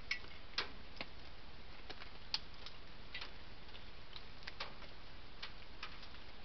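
Steady microphone hiss with about ten sharp ticks and clicks, scattered irregularly.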